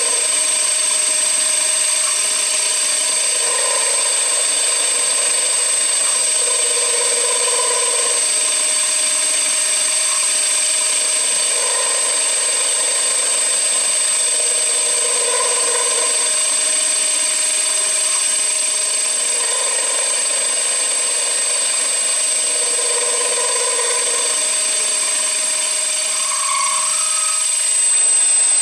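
CNC machine running: a steady high whine, with a lower motor tone that comes and goes about every four seconds as the machine works.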